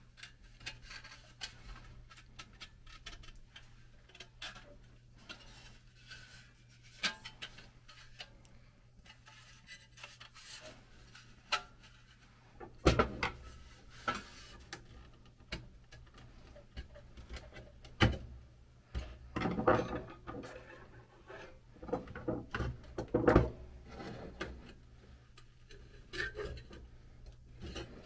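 Rusty pressed-steel parts of a 1940s Marx DC-4 toy airplane being handled and turned over by hand: scattered clicks, taps and rubbing of sheet metal. It is sparse at first and gets busier and louder about halfway through.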